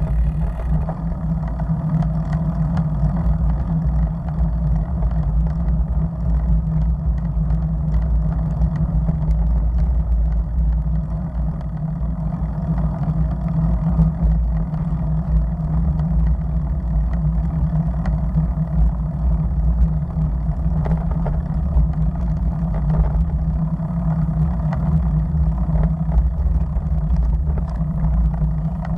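Steady low rumble of wind buffeting and road vibration on a bicycle-mounted camera's microphone while riding.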